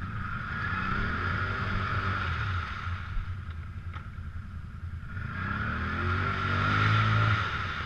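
Can-Am Outlander ATV engine revving hard twice as it works through deep mud, the pitch climbing and falling with each push, the second rev louder, over a steady low engine rumble.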